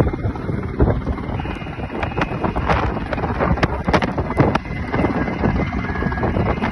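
A steady low engine rumble with wind on the microphone, broken by many sharp, irregular cracks and snaps.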